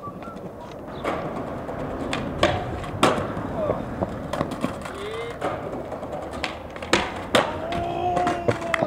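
Skateboard wheels rolling on concrete, broken by a string of sharp board clacks and slaps as the board pops, lands and hits the pavement. A few short voice calls come in between.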